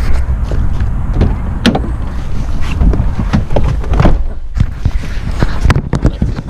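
Low, steady rumble of a car's cabin, with a string of sharp knocks and clicks from a handheld camera being fumbled and swung about.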